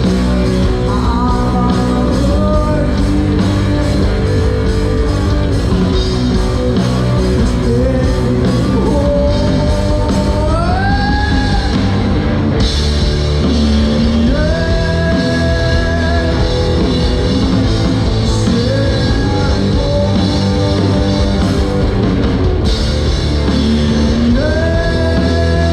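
Rock band playing live, with drum kit and guitars, and a lead line of long held notes that slide up between pitches.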